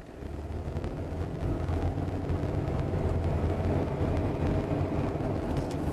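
Car engine and road noise heard from inside the cabin while driving, growing louder over the first second or so and then holding steady as a low rumble.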